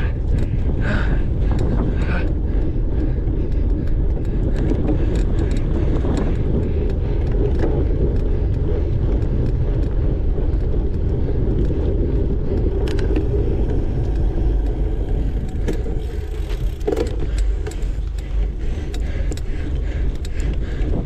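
Steady rumble of a cyclocross bike riding fast over a dirt course: wind on the microphone and tyres on the ground, with frequent short clicks and rattles from the bike going over bumps.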